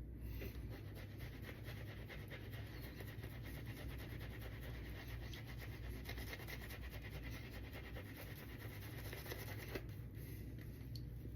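Shaving brush with a synthetic knot working shaving-soap lather on a face, a faint, steady wet swishing with fine crackling.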